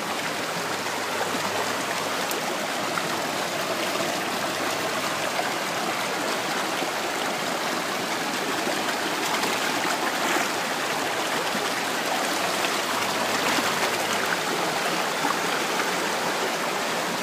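Stream of water rushing and splashing over rocks in a steady, unbroken rush.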